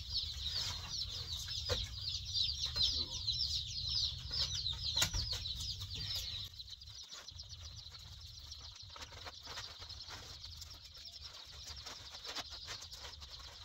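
A brooder full of baby chicks peeping, a dense chorus of short, high, falling peeps that grows quieter about halfway through. A plastic tarp crinkles and rustles as it is spread over the boxes.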